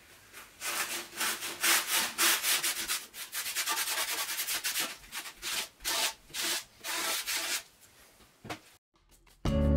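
Hand rubbing strokes on the cast-iron column of a milling machine, scraping off old paint and grime. The strokes are quick and repeated, about three a second, and stop near the end.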